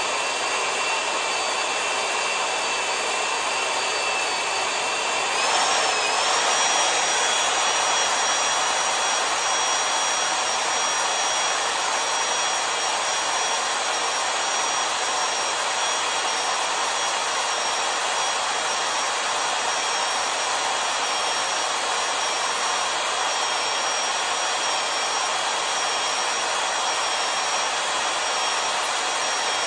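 Kwik-Way portable valve seat cutter running steadily under power, a motor whine over a hiss, as it cuts the seat pocket in a Ford Model A engine block for an exhaust valve seat. About five seconds in, the whine steps up in pitch and briefly gets a little louder.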